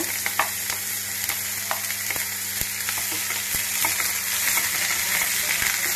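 Chopped onions sizzling in hot mustard oil in a kadhai, a steady hiss, stirred with a wooden spatula that scrapes and taps the pan now and then.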